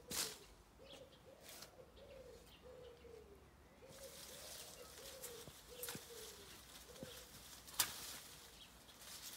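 A pigeon cooing over and over, a soft low call repeated at an even pace, with a few sharp snips of loppers cutting bay branches, the loudest one near the end.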